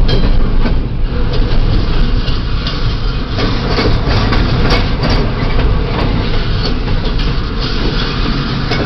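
Double-stack intermodal freight train's well cars rolling past: a steady low rumble with frequent irregular sharp clicks and clanks from the running gear, heard from inside a car.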